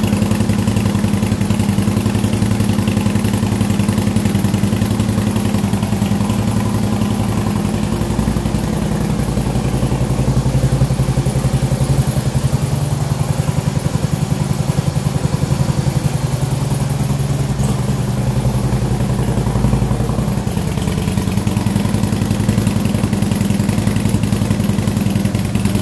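Harley-Davidson touring motorcycle's V-twin idling steadily through aftermarket Vance & Hines High Output Pro Pipe slip-on mufflers.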